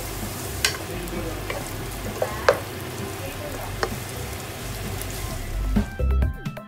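Onions and minced garlic sizzling in hot oil in a nonstick pot as a wooden spoon stirs them, with several sharp taps of the spoon against the pot. Music with a drum beat comes in near the end.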